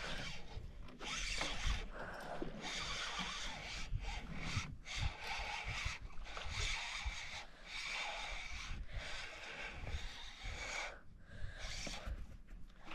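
Spinning reel being cranked in repeated spells as a hooked fish is reeled in, with some rod-handling noise.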